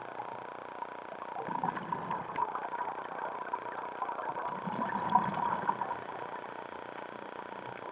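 Scuba diver's exhaled regulator bubbles, heard underwater through a camera housing: two bursts of bubbling, each about a second long, about 1.5 and 4.5 seconds in, over a steady underwater hiss.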